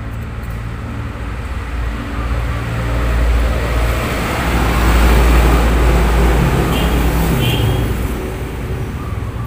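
A motor vehicle passing: engine and road noise build to a peak around the middle and fade again, over a steady low hum.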